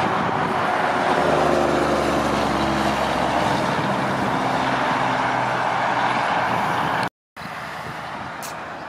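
Road-train truck diesel engine running loud and close, a steady engine drone under heavy tyre and road noise. The sound cuts off abruptly about seven seconds in and gives way to a much quieter outdoor background.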